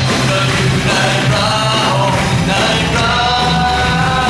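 Live worship band playing a song, with drum kit and guitar under voices singing the melody.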